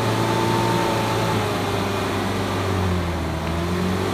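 The engine of a heavily loaded Mitsubishi L300 pickup running steadily under load as the truck labours, nearly stalled in place, on a loose dirt climb.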